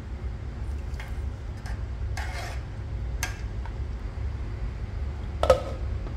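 Low steady rumble from a pot of rice simmering in stock on a gas burner, with a few light clicks and knocks. About five and a half seconds in comes a louder clink with a short ring as a glass lid is set on the metal pot.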